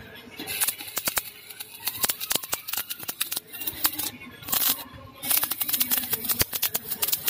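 Stick (arc) welding on steel: the arc crackles and spits in a dense run of sharp clicks, breaking off briefly twice near the middle.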